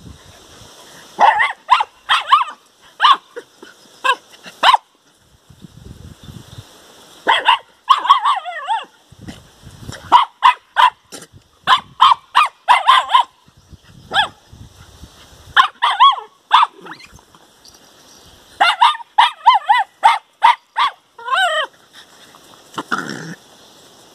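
Small dogs barking and yipping in high-pitched bouts of several quick barks, about six bouts in all, some calls wavering in pitch like yelps.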